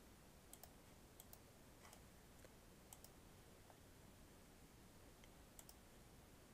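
Near silence with a handful of faint computer mouse clicks, single and in quick pairs, scattered at irregular intervals.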